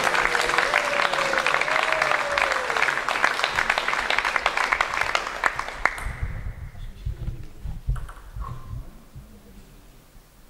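Audience applauding and clapping after a table tennis rally, with a drawn-out voice calling out over the clapping for the first few seconds. The applause dies away about six seconds in, leaving low thumps and rumbles.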